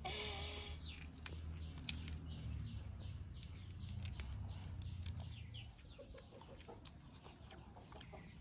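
Chickens clucking, with short high chirps and scattered sharp clicks over a low steady hum that stops about six seconds in.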